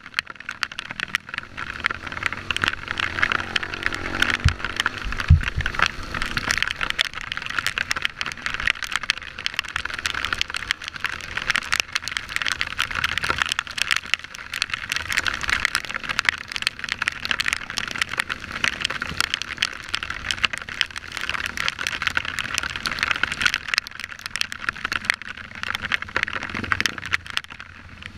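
Dirt bike engine running while riding a rough, muddy trail, heard under a dense, constant crackling hiss, as picked up by a camera on the bike or rider.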